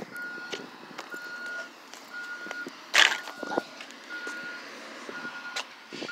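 A single-tone electronic beep repeating about once a second, in the pattern of a vehicle's reversing alarm, with scattered clicks and one loud knock about three seconds in.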